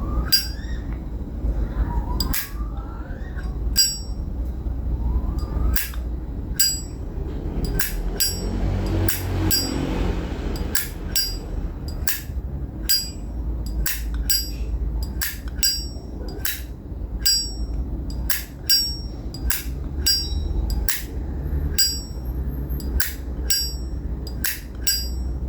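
1958 Zippo lighter's hinged metal lid being flicked open and snapped shut again and again, each stroke a sharp metallic click with a short ring. The clicks come slowly at first, then about one and a half to two a second from about ten seconds in. The owner calls the sound 'bon bon bon' and spot-on for a lighter this old.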